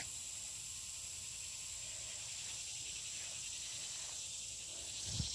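Steady high-pitched insect chorus.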